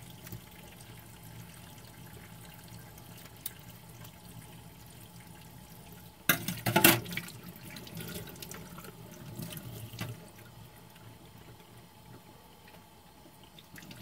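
Kitchen tap running steadily into a stainless steel sink. About six seconds in comes a brief, loud burst of noise lasting under a second, followed by a few smaller knocks.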